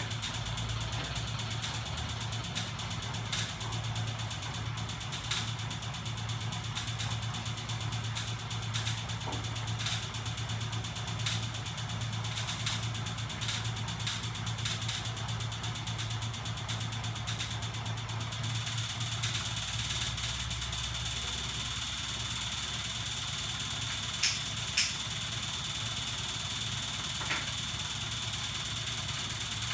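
Home-built ornithopter mechanism running, driven by a 24 V electric motor and crankshaft: a steady mechanical hum with a thin high whine and scattered light clicks. About two-thirds of the way through, the low hum shifts lower, and two sharp clicks follow a few seconds later.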